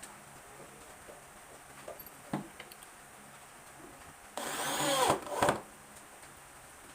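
A power tool runs in a short burst of about a second, its motor pitch sweeping, then gives a brief second blip. A single knock comes a couple of seconds earlier.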